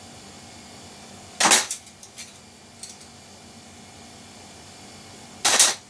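Two short, sharp noises about four seconds apart, with a few faint clicks between them, from memory modules being handled and sorted.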